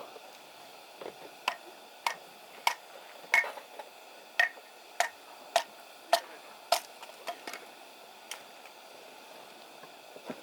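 A run of sharp knocks, about one every half second, loudest midway and tailing off near the end.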